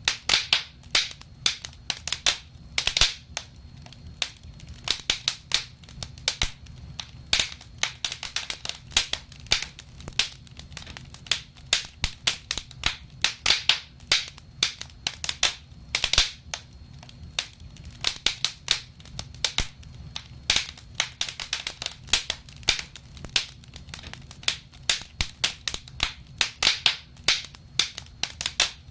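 Wood fire crackling in a fireplace: irregular sharp pops and snaps, several a second, over a low rumble of the burning.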